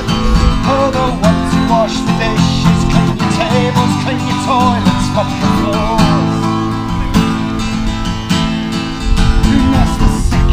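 Acoustic guitar being strummed, a steady run of chords played live.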